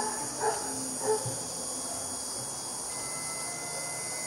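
Crickets chirping steadily in a night chorus, with a few short sharp calls in the first second or so and a faint steady high tone coming in about three seconds in.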